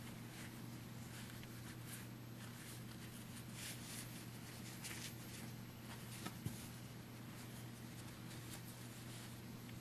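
Faint, irregular rustling and scratching of cotton and fabric as a miniature pillow is stuffed by hand and pushed in with a pencil end, over a steady low hum. Two small sharp clicks about six seconds in.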